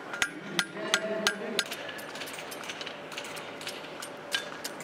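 Hand hammers striking hot steel on anvils as blacksmiths forge, each blow ringing. A quick run of blows comes in the first second and a half, then scattered strikes from more than one anvil.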